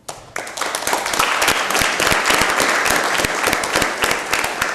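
A small audience applauding, starting suddenly with many individual claps and easing off slightly near the end.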